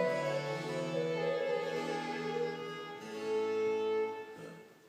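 Baroque chamber music on harpsichord, violin, cello and a wooden woodwind, playing the closing bars of a piece. It ends on a held final chord that dies away near the end.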